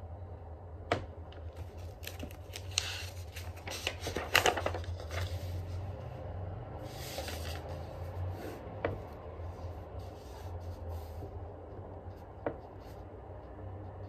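Handling sounds at a desk: scattered taps and knocks with paper rustling and sliding, the loudest cluster about four seconds in and a rustle near seven seconds, over a steady low hum.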